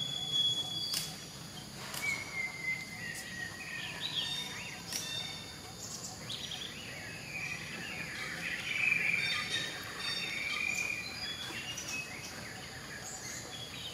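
Outdoor ambience of birds chirping and twittering over a steady background hiss, with a few sharp clicks in the first few seconds.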